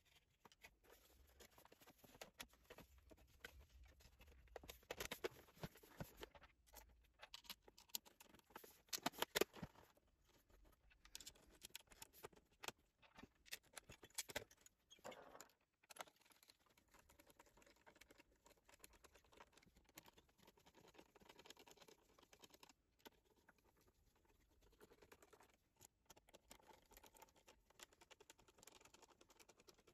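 Faint clicks, taps and scrapes as an iMac G4's bottom plate is fitted onto its plastic dome and its screws are turned with a screwdriver. The loudest clusters of clicks come about five and nine seconds in, with lighter scratchy ticking after that.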